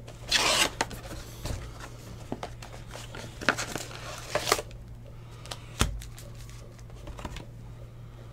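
Foil-wrapped trading card packs crinkling and rustling as they are pulled out of a cardboard hobby box and stacked, with a dull thump about six seconds in. A steady low hum runs underneath.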